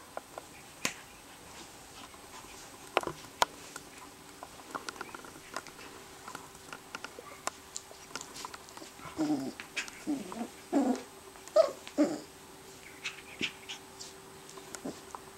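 Rough collie puppy making a run of short, high-pitched play growls and whines about nine to twelve seconds in, amid scattered light clicks and taps as she mouths her toys.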